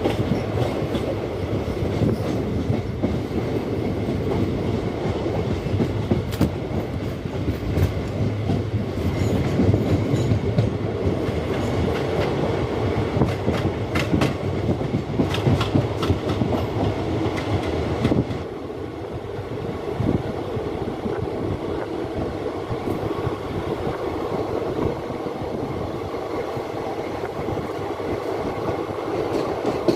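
Sangam Express coaches rolling along the track, wheels clattering over rail joints with many sharp clicks. About two-thirds of the way through the sound drops a little and carries on as a steadier rumble.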